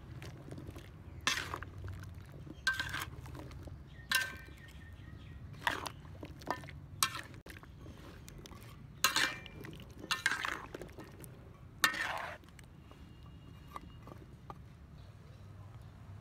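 Metal spatula scraping and clinking against a large metal wok while turning sweet potato chunks in syrup: about eight separate strokes, some ringing briefly. It goes quieter for the last few seconds.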